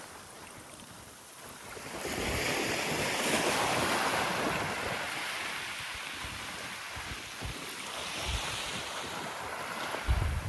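Small waves washing up on a sandy beach: one wave surges in about two seconds in and slowly drains away, with a smaller wash later. Wind gusts buffet the microphone, most strongly near the end.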